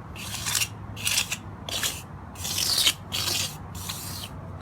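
Trowel scraping and smoothing mortar across a concrete slab repair, about six even back-and-forth strokes.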